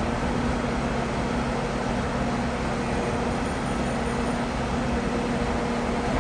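A heavy machine running steadily, an even drone with a constant low hum.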